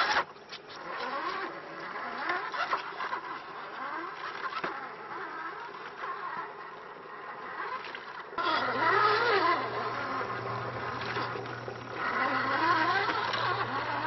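Electric motor and gear drivetrain of an RC scale Jeep Wrangler crawler whining, its pitch rising and falling again and again as the throttle is worked over the rocks. It turns louder after about eight seconds, with a steady low hum underneath.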